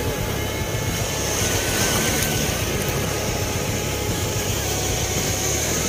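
Steady wash of surf over the shallows, with the drone of a motorboat's outboard engine running offshore.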